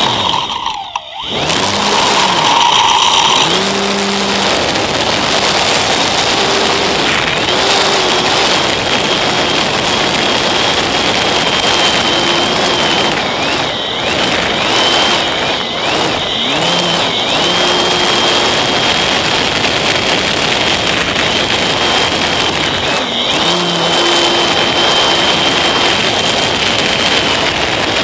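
Electric motor and propeller of a Slow Stick model plane running at high power, picked up by the camera mounted on the plane with wind rushing past. A steady high whine dips and recovers several times as the throttle changes, after a brief drop in power about a second in.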